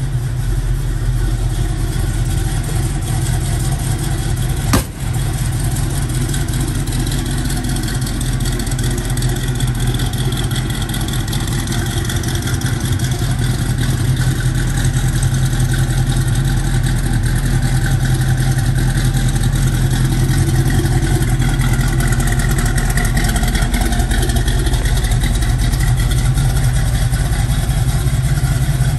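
The 402 cubic-inch big-block Chevrolet V8 in a 1954 Chevrolet pickup idling steadily, a loud, even low rumble. There is a single sharp click about five seconds in.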